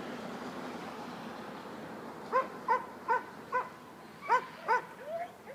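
A dog barking six times in short, high yips starting about two seconds in, then letting out one longer whine near the end.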